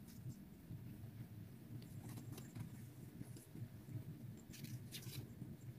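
Faint scratching and rustling of Persian kittens' paws and claws on a shaggy rug and fabric pet tent, in two short clusters about two seconds in and again near the end, over a steady low hum.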